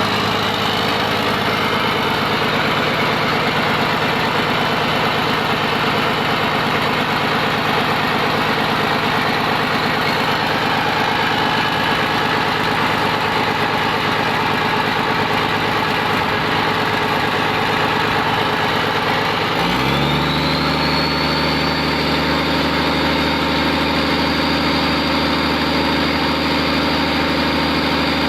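Komatsu PC200-8M0 excavator's freshly overhauled six-cylinder diesel engine running steadily at a low speed, then rising quickly in speed about twenty seconds in and holding steady at the higher speed.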